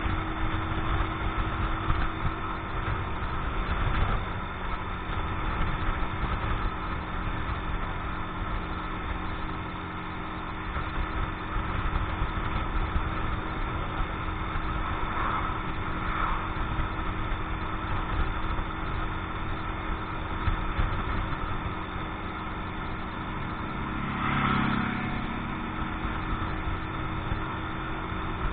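Keeway X-Light 125's single-cylinder four-stroke engine running steadily at a moderate cruise, the bike still being run in, with wind rumbling on the microphone. There is a brief louder swell about three-quarters of the way through.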